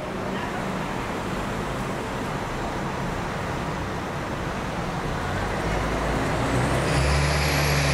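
Boeing 787-9 on final approach with its landing gear down: a steady jet rumble that grows louder over the last few seconds as the airliner nears. A high whine rises and then falls in pitch near the end.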